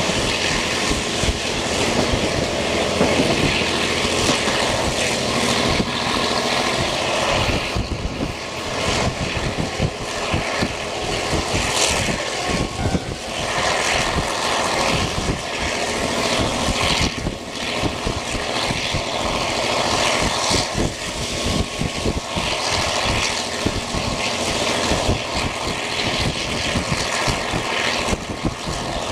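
Wind rushing and buffeting in through the open window of an old-type passenger coach moving at speed, over the running noise of the train.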